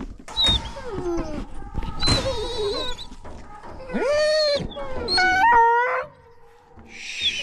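Hunting hounds baying from the dog box on a pickup truck: several long, overlapping calls that rise and fall in pitch, loudest in the middle, with a short lull about six seconds in before they start again.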